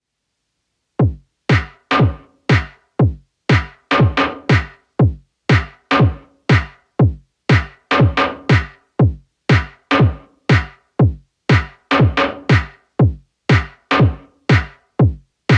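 Electronic music: a drum-machine kick with a falling pitch, about two beats a second, starting about a second in after silence, each beat with a bright percussive top.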